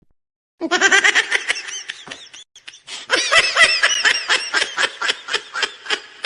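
A person laughing in rapid, high-pitched pulses, a meme laugh sound effect. It starts about half a second in, breaks off briefly midway, then carries on.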